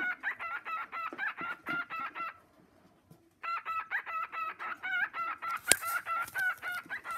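A pet bird calling in quick, evenly repeated pitched notes, about four a second, in two bouts with a pause of about a second in between. There is a sharp click about six seconds in.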